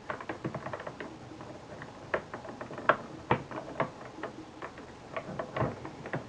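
Irregular small clicks and taps of the plastic parts of a video camera being handled and pried at while trying to pop a piece off. A handful of sharper, louder clicks stand out among many faint ones.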